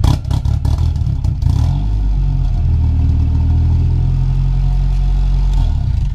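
Turbocharged Mitsubishi 4G64 four-cylinder engine revving through a brand-new full exhaust system on its first start. There is a sharp rattle at the start. The revs dip, then rise about two seconds in and hold steady until the sound drops away near the end.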